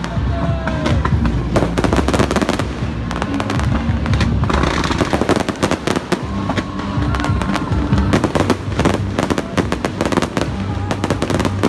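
A dense barrage of aerial fireworks: many bangs and crackles in quick succession.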